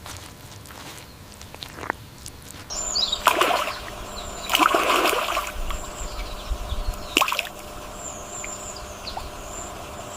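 Water splashing and sloshing in two bursts, with a sharp click later and a thin, wavering high chirping in the background.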